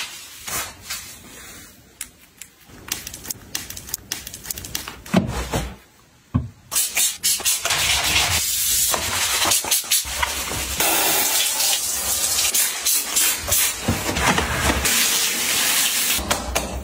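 Light rubbing and taps of a cloth wiping a toilet, then from about six seconds in a steady spraying hiss that carries on to the end, with gloved hands rubbing over a soapy shower mixer.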